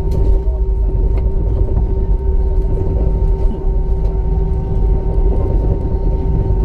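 Cabin noise of an Airbus A319 taxiing, heard from a window seat over the wing: a steady low rumble with a constant hum from the engines at low taxi thrust, and a couple of faint clicks about a second in.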